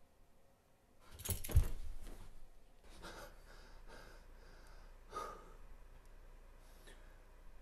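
A brief cluster of knocks about a second in, then quiet, faint breathing with a small click about five seconds in.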